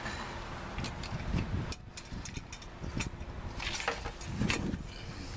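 A handful of light clicks, knocks and scrapes as a metal headlight mounting frame and a plastic headlight bowl are wiggled into place against a Land Rover Defender's front panel.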